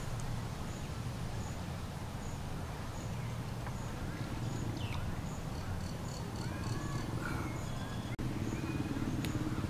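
Outdoor forest ambience: a steady low rumble with a faint high tick repeating about every two thirds of a second and a few short chirping calls in the middle. After a brief dropout near the end, a low hum comes in louder.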